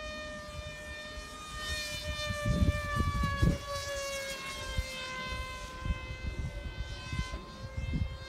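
Brushless Emax electric motor and propeller of an RC FPV plane whining in flight overhead, one steady high tone whose pitch falls slowly as the plane passes. Low gusts of wind rumble on the microphone a few seconds in.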